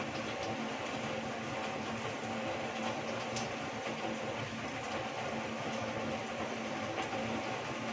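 Heavy rain falling steadily, an even hiss with a sharper drop tick now and then, over a faint steady hum.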